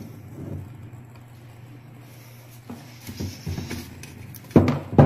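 Handling noise: scattered knocks and bumps of things being moved on a wooden surface, ending in two loud thumps, over a steady low hum.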